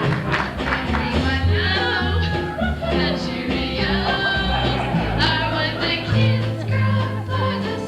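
Music with singing: a song over a steady bass line.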